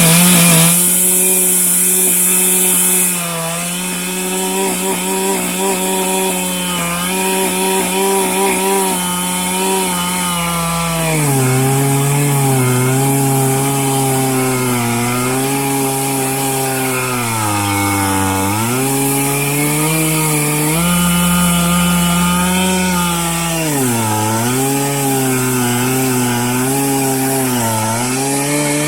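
Stihl MS 441 C-M Magnum two-stroke chainsaw running at full throttle while milling a red oak log. Its note drops slightly about three seconds in, then sags and recovers several times as the engine is loaded in the cut.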